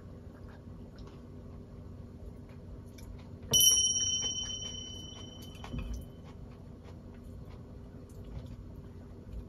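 A small ceramic sake cup set down with a sharp clink about a third of the way in, ringing clearly and fading over a couple of seconds. A soft low knock follows, over a steady low hum.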